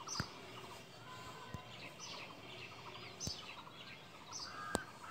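Small birds chirping and calling faintly, in many short high chirps, with a few sharp clicks, the loudest near the end.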